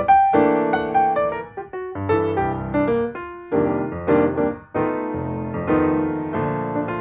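Background piano music: a melody of struck notes, each fading after it sounds, over a steady flow of chords.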